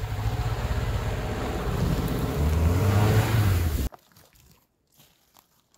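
ATV (quad bike) engine running hard, its pitch rising about two and a half seconds in, then cut off suddenly about four seconds in.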